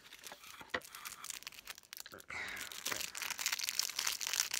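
Packaging being handled and opened by hand: irregular crinkling and rustling with many small sharp clicks.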